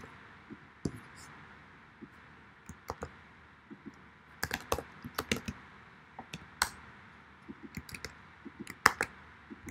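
Typing on a computer keyboard: scattered keystrokes in short irregular runs, sparse at first and busiest about halfway through and again near the end.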